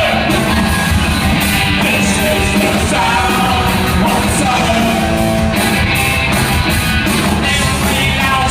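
Punk rock band playing live, with vocals over electric guitar, bass and drums keeping a steady beat.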